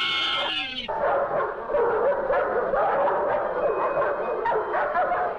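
Film soundtrack: music in the first second cuts off abruptly and gives way to a pack of dogs barking and snarling in quick overlapping calls.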